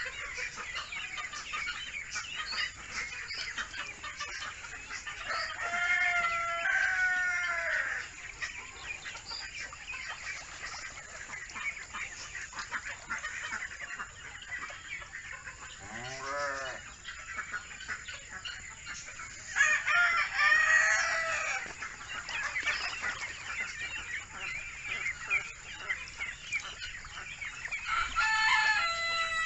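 A brood of Muscovy ducklings peeping continuously in a dense, high chatter, while a rooster crows three times, each crow lasting about two seconds.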